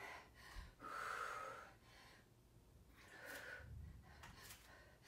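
A woman's faint, effortful breathing during chair tricep dips: a long breath out about a second in and a shorter one just after three seconds.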